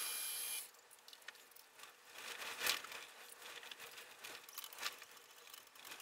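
Drill press running with a high whine while drilling into a metal block, cutting off abruptly under a second in. Then come light clicks, scrapes and rustles of the work being handled and reset in the vise, with one sharper crinkly rattle about two and a half seconds in.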